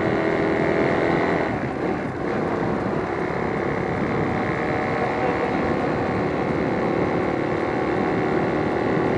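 Motorcycle riding noise: a steady engine drone and wind rushing over the external microphone, dipping briefly about two seconds in.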